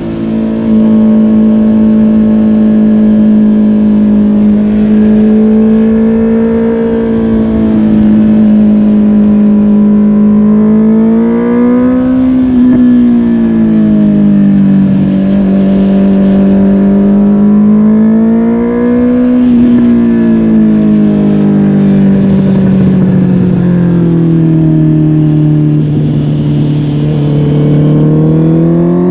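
Honda CB650R's inline-four engine running through a MIVV GP Pro carbon aftermarket exhaust while riding, its pitch rising and falling with the throttle. It climbs about twelve and nineteen seconds in, sinks lower around twenty-five seconds, then climbs again near the end.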